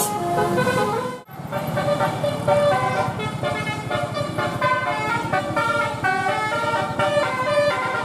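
Bus telolet horn playing a quick tune of stepped musical notes. It breaks off about a second in and another telolet tune follows, with motor traffic running underneath.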